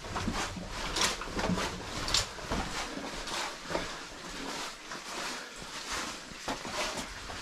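Footsteps walking at a steady pace, about two steps a second.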